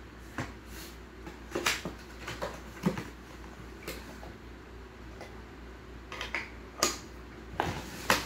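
A small cardboard box being opened and unpacked by hand, with the food chopper parts inside knocking about. Scattered taps, knocks and scrapes, the sharpest near three seconds in and again near the end.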